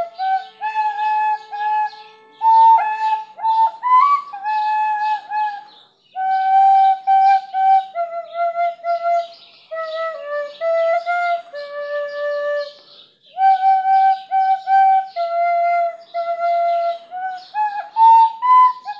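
Plastic soprano recorder playing a single slow melody line in phrases of held and stepping notes, with short pauses between phrases about six and thirteen seconds in.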